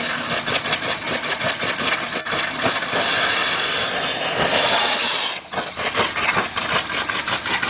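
Lifting steam injector on a boiler blowing steam out of its overflow with a steady, crackling hiss, not yet picking up water. The hiss is strongest a few seconds in and dips briefly past the middle.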